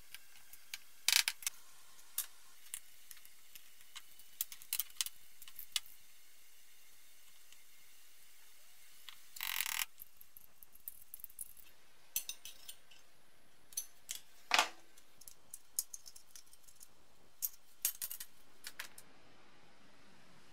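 Scattered clicks and clinks of small plastic and metal parts as BMW E30 front indicator lamps are taken apart with a screwdriver on a wooden workbench. There is a short scraping sound about halfway through.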